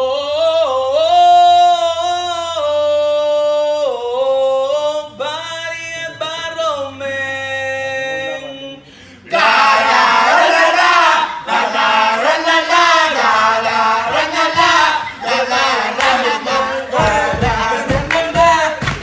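A man's voice singing long held notes, then about nine seconds in a group of male voices comes in, singing loudly together. Near the end a quick run of thumps sounds under the singing.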